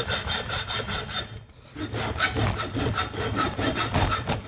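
Hacksaw cutting through a solenoid in fast back-and-forth strokes. There is a brief pause about one and a half seconds in, and the sawing stops near the end.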